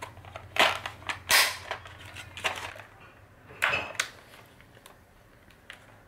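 Hard plastic parts of a Dyson vacuum cleaner head being handled and fitted back together: a handful of sharp clicks and clatters over the first four seconds.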